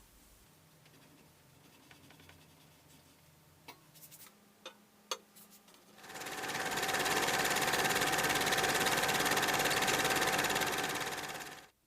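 A few light clicks, then a small motorised tool starts with a loud, fast-pulsing buzz about halfway through, runs steadily for several seconds and cuts off suddenly.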